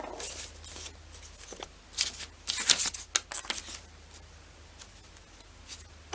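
Handling of a small plastic ball-head clamp mount: a quick run of sharp clicks and short rubbing scrapes over the first four seconds, then a few faint ticks.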